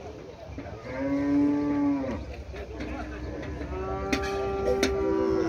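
Cattle mooing: one call of about a second, starting about a second in, then a longer call from about three seconds in that steps up in pitch partway through.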